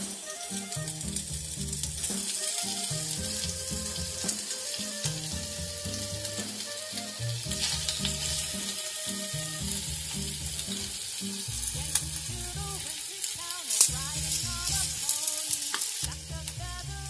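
Sliced pork sizzling in a hot clay pot as pieces are laid in with chopsticks, a steady high hiss. Background music with a rhythmic bass and melody plays throughout.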